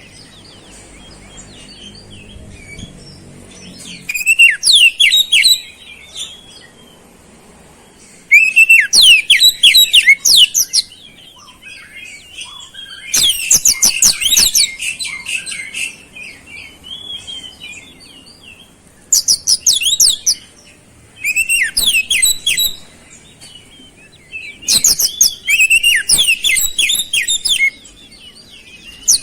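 Oriental magpie-robin (kacer) singing in repeated loud bursts of rapid, high, sweeping notes, each a second or two long with pauses between. The song is filled with mimicked flowerpecker (cabe-cabean) calls.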